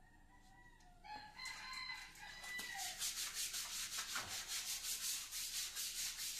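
Scrubbing of a tiled bathroom floor by hand in quick, even rhythmic strokes, about four a second, starting about three seconds in. Before that there is a faint, drawn-out call.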